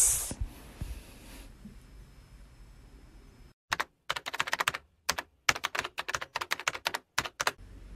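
A quick, irregular run of sharp clicks starting about three and a half seconds in and stopping shortly before the end, broken by moments of dead silence.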